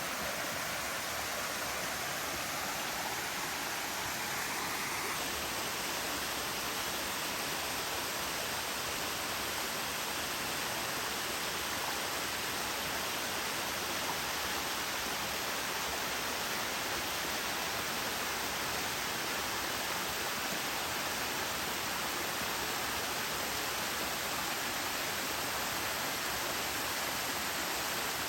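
Small waterfall running with low flow: a steady rush of falling water with a slight change in tone about five seconds in.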